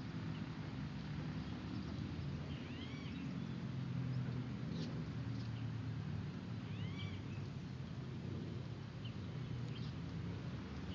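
Parrots calling now and then from a tree: a few short, arching squawks, the clearest about three and seven seconds in, over a steady low rumble.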